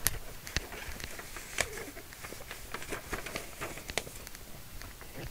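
Faint room noise with scattered small clicks and light rustles, the sharpest just after the start and about one and a half and four seconds in.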